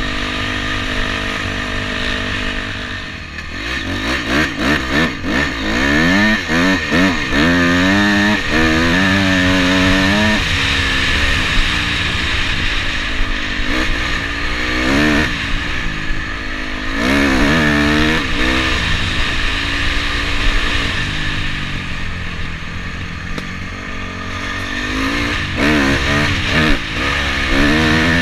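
Dirt bike engine revving up and down again and again under the rider's throttle, its pitch rising and falling in quick sweeps. The engine runs steadier at the start and again about two-thirds through.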